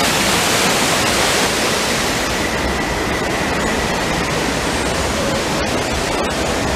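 Steady rushing of a waterfall pouring down rockwork.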